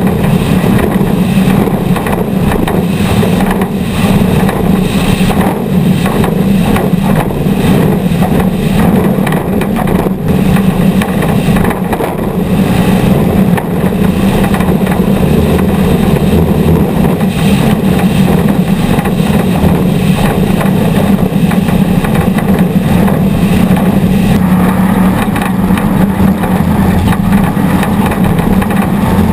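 Off-road race vehicle engines running hard, a loud, steady drone that goes on without a break.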